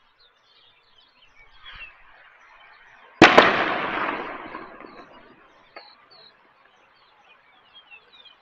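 A single sharp bang with a second crack right after it, its echo fading away over about two seconds, with small birds chirping throughout.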